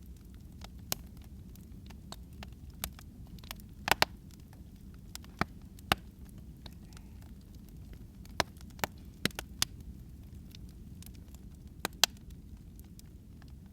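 Wood fire crackling in a fireplace: irregular sharp pops and snaps over a low, steady background noise, the loudest pops about four seconds in and near the end.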